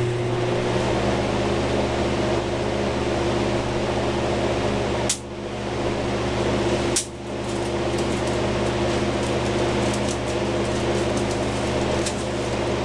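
Honeywell F54C electronic air cleaner running: a steady blower with a strong electrical hum. Two sharp clicks come about five and seven seconds in. The unit sounds good to its owner, without the snapping that dirty electrostatic cells make.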